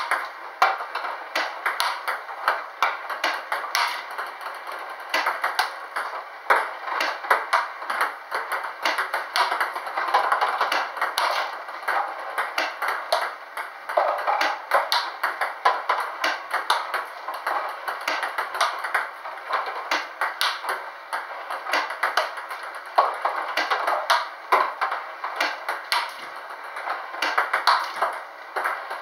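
Table tennis rally against a ball robot: ping-pong balls clicking off a penhold bat and bouncing on the table in a quick, uneven string of sharp pings.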